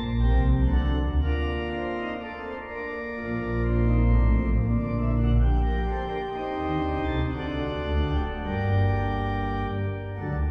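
Church organ playing slow, sustained chords over deep bass notes, the harmony shifting every second or two.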